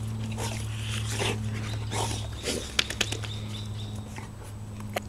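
Two Rhodesian Ridgebacks play-wrestling, their breathing and play noises coming in short bursts about twice a second, with a couple of sharp clicks near the middle. A steady low hum runs underneath.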